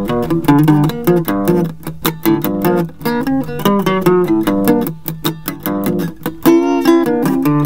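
Solo acoustic guitar playing Mississippi blues: a quick run of plucked single notes and bass notes with sharp attacks, then a chord left ringing about six and a half seconds in.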